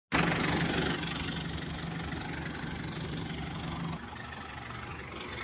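Diesel engine of a hydra crane running steadily; about four seconds in its note drops lower and quieter, as if throttled back.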